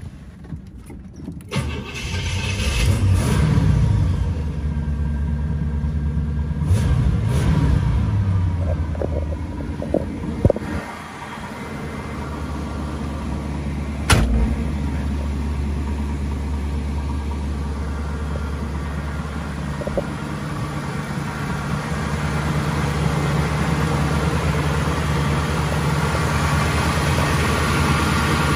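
1976 Cadillac Eldorado's 500 cubic-inch V8 starting about two seconds in, revved twice and then settling into a steady idle. A single sharp knock sounds about fourteen seconds in.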